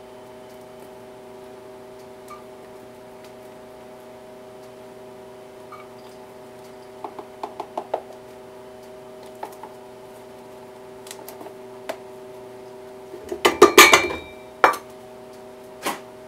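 Metal measuring cup and cocoa tin clinking lightly against a stainless steel stockpot as cocoa powder is scooped in, then a louder clatter of metal about two seconds before the end. A steady hum runs underneath.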